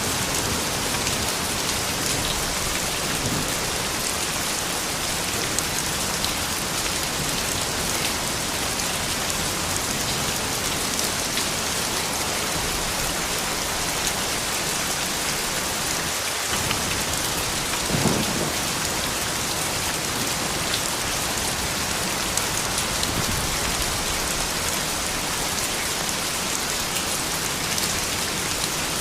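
Steady, even rain, with scattered drops ticking on surfaces and one brief louder knock about 18 seconds in.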